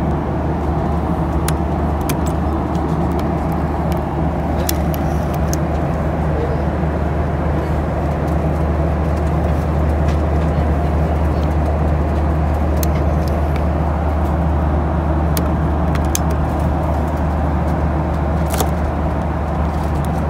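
Steady low drone inside a Boeing 737-800's passenger cabin: engine and airflow noise, with a few faint clicks.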